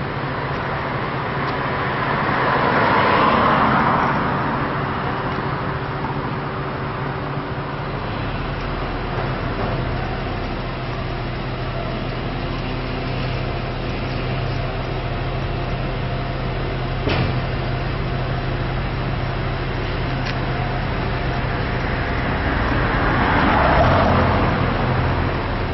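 Traffic and engine noise: two vehicles pass, each swelling and fading, one about three seconds in and one near the end. A steady low engine hum runs underneath and grows stronger about a third of the way through, and there is a single short click about two-thirds through.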